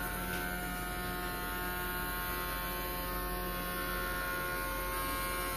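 Steady electrical hum and buzz from a running homemade high-voltage generator circuit: a low drone under a stack of buzzy higher tones that does not change.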